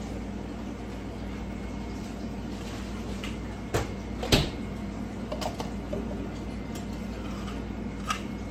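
Kitchen handling sounds over a steady low hum: a few light knocks and clatters of cups and containers being picked up and set down, the loudest a little after four seconds in.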